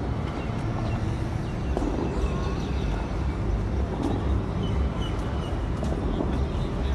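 Steady outdoor background noise with a strong low rumble and a few faint high chirps about halfway through.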